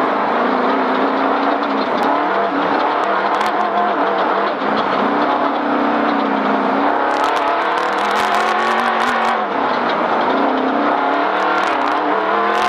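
Off-road race vehicle's engine heard from inside the cab, its revs rising and falling as it drives over rough ground. A run of sharp knocks and rattles starts about seven seconds in.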